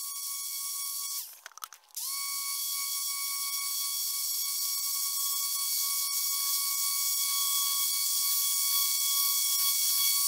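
Electric random orbital sander running on a wooden rafter: a steady high whine over a hiss of abrasive on wood, cleaning off layout marks and planer chatter. It drops out briefly under two seconds in, then runs on steadily.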